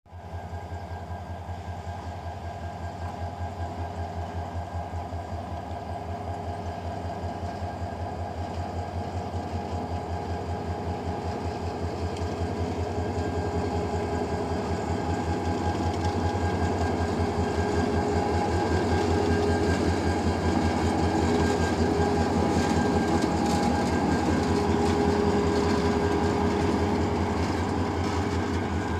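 Diesel locomotive engine running under power as it approaches and passes, a fast, steady low throb with a steady whine over it, growing louder as it draws near.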